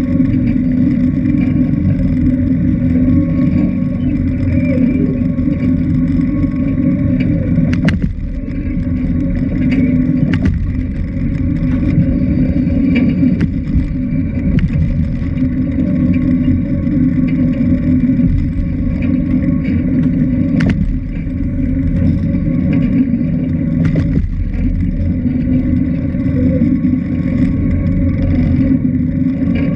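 A motorboat's engine runs steadily at a constant pitch as a low, loud drone, with a few sharp knocks on the hull along the way.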